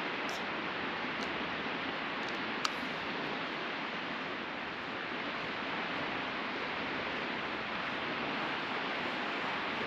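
Steady wash of sea surf on the beach, with a small sharp click about two and a half seconds in.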